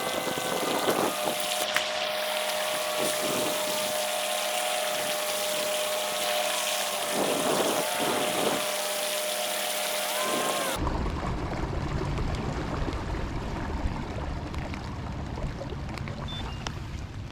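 Outdoor noise on the water: a steady hiss with a faint steady hum, then, after an abrupt change about eleven seconds in, a low rumble of wind on the microphone.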